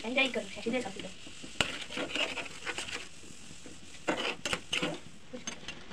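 A metal utensil clinks and scrapes against a pan as a block of instant ramen is stirred in boiling water, over the water's steady bubbling. There is a sharp click about a second and a half in and a quick run of clinks around four to five seconds in.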